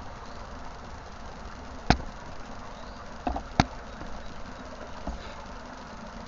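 Steady rushing of a small stream, with three sharp knocks about two, three and a half, and nearly four seconds in.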